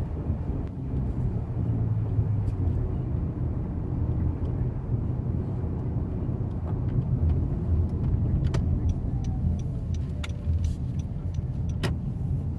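2014 Honda Accord driving, with a steady low road rumble and a few sharp clicks or knocks in the second half: the rattle from the driver's side front wheel, which the owner suspects may be a bad shock.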